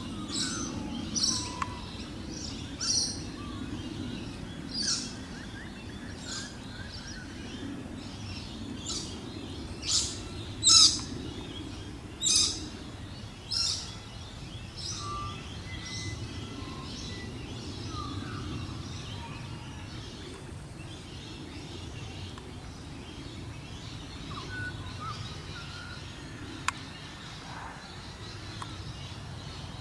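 Birds chirping: short, high calls repeated about every one to two seconds, loudest around the middle, then only a few faint ones, over a steady low background rumble.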